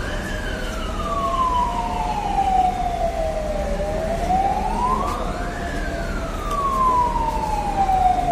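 Fire engine siren wailing in slow sweeps. Each quick rise of about two seconds is followed by a longer fall of about three and a half seconds.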